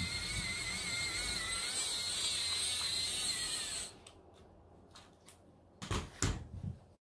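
Meccano 25-in-1 Supercar's small battery-powered electric motor and gearbox whirring steadily as the toy car drives across a table, with a slightly wavering whine that cuts off about four seconds in. It is followed by a few sharp knocks and clicks as the car is handled.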